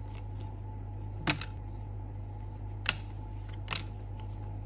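Hands handling the plastic pieces and cards of a toy transformation-belt set: a few sharp clicks about a second apart, the last two close together, over a steady low hum.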